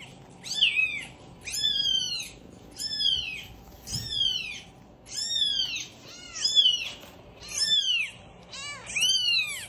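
Newborn kitten mewing, played back through a phone speaker: about nine high, thin mews roughly a second apart, each rising then falling in pitch.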